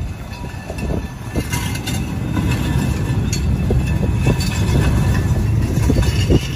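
Solar-powered electric railcar rolling along the track: a low rumble of its wheels on the rails that grows louder through the stretch, with a faint steady whine above it and a few light clicks.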